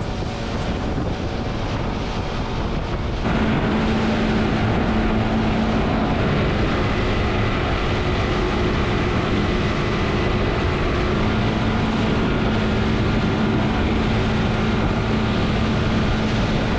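Motorboat running at speed, a steady engine drone over rushing wind and water noise. About three seconds in it abruptly gets louder and a steady engine hum comes through.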